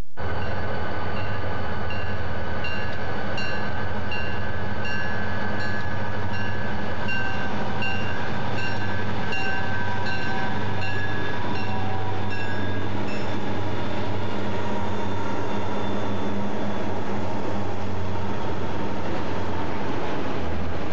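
A lash-up of three EMD GP-35 diesel locomotives, turbocharged V16 engines working hard, passing close by with a steady deep engine drone, while a bell rings rhythmically through roughly the first half. Near the end the freight cars behind them roll by.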